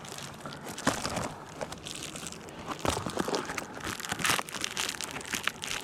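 Crinkly covering material being handled and pushed into place on a beehive: irregular crinkling and rustling with a few sharp crackles, the loudest about one, three and four seconds in.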